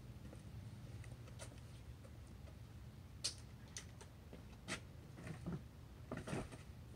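A few faint, sharp clicks and knocks over a low background hum, the sharpest a little over three seconds in and a small cluster near the end: handling sounds of a break-barrel spring-piston pellet rifle being readied to shoot.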